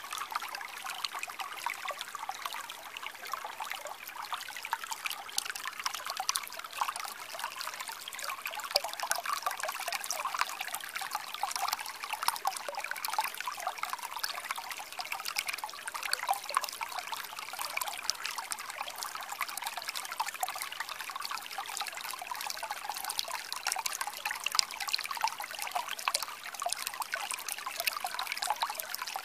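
Shallow stream trickling and splashing over stones close by: a steady rush of water full of small splashes.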